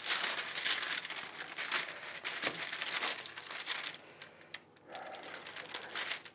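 Baking paper crinkling and rustling under hands pressing and shaping a sticky, unfloured spelt-oat bread dough on a baking tray. It is a continuous crackly rustle with small clicks.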